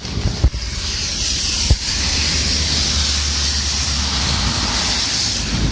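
Heavy rain falling in a steady rushing hiss over a low rumble, with a couple of brief knocks in the first two seconds.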